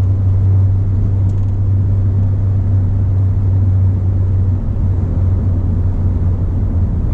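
Ford Fiesta ST under way: a steady low engine and road drone while cruising, easing slightly a little past halfway.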